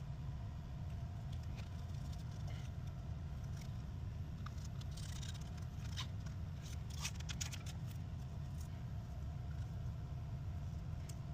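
Faint clicks and light scrapes of small repair tools against a phone's frame, bunched in the middle, over a steady low hum.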